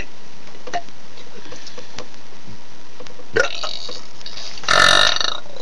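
A person burping on purpose: a loud, rough burp about half a second long near the end, after a weaker one a second or so earlier.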